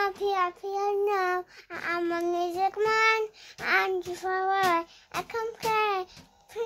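A young child singing in a high voice without clear words: a string of short held notes with brief breaks between them.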